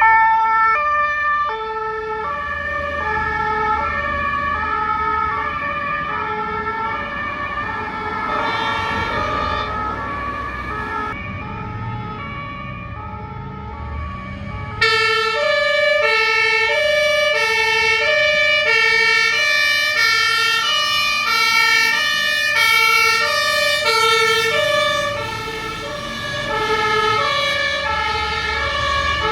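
German fire engines' two-tone horns (Martinhorn) sounding high-low alternately, with diesel engines running underneath. Several horns overlap out of step. About fifteen seconds in, a much louder horn comes in abruptly.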